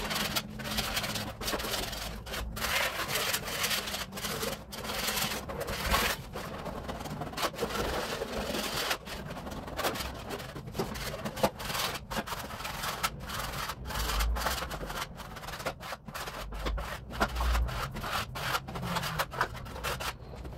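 Wallpaper being scraped off a plaster wall by hand, in short, uneven scraping strokes with brief pauses between them.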